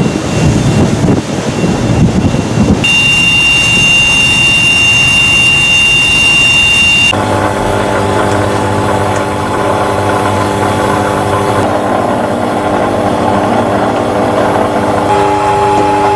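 Steady machinery drone aboard a warship: a rough, low rush of wind and engine noise at first, then a high steady whine for about four seconds, then a steady low hum of several tones from the ship's engines and equipment.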